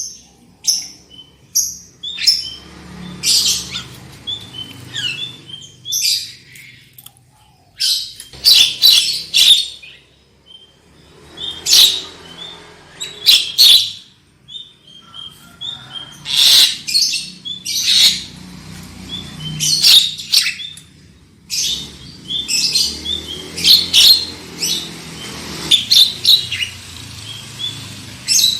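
Javan myna (jalak kebo) singing: a run of loud, high-pitched harsh calls and short whistled notes, coming in bursts every second or two with brief pauses.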